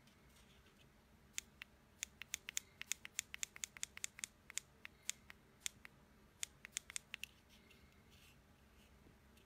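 Clicking of the Humixx selfie stick's Bluetooth remote button pressed over and over, each press stepping the iPhone's ringer volume up. About two dozen short, light clicks at an irregular, fast pace, starting about a second and a half in and stopping a couple of seconds before the end.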